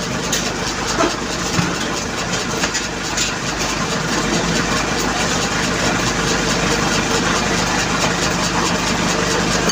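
An engine idling steadily nearby, growing a little louder about four seconds in.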